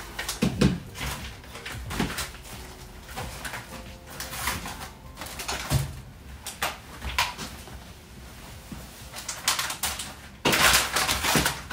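Plastic food packages and containers rustling, crinkling and clattering as they are handled and set down on a folding table, with irregular clicks and knocks and a louder burst of rustling near the end.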